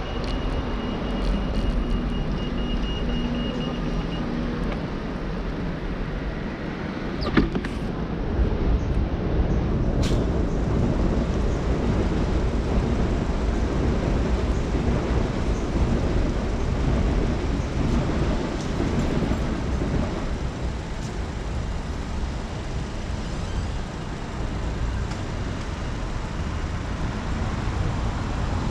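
Road traffic heard from a moving bicycle: a steady rush of passing cars and buses mixed with wind on the microphone, and a single sharp knock about seven seconds in.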